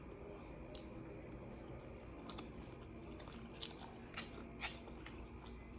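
A person chewing food close to the microphone, faint and wet, with three sharper clicks between about three and a half and five seconds in.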